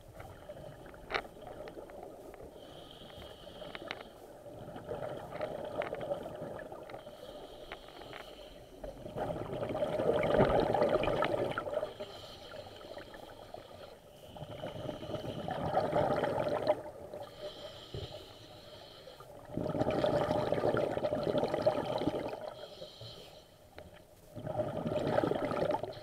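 Scuba diver breathing through a regulator underwater: a short hiss on each inhale, then a louder gurgling rush of exhaust bubbles on each exhale, repeating about every five seconds.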